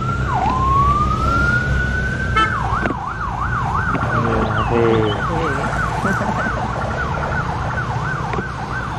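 Police escort siren: a slow rising wail that switches about three seconds in to a fast yelp, rapid up-and-down sweeps about two or three a second, over a low engine rumble.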